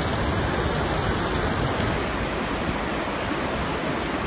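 Steady rush of floodwater: a loud, even wash of noise with no pitch or distinct strokes.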